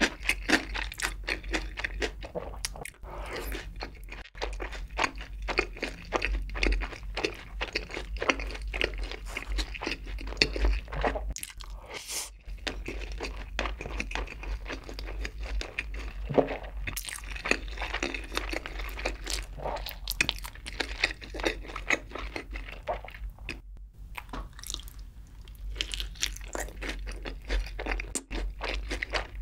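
Close-miked chewing of crunchy sauced fried chicken: a quick, irregular run of crisp crunches and wet mouth sounds as the batter breaks up.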